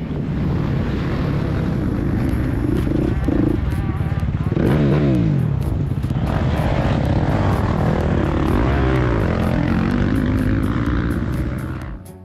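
Motocross bike engine running hard under load, its note dropping sharply about four and a half seconds in, then carrying on with rough, uneven revs.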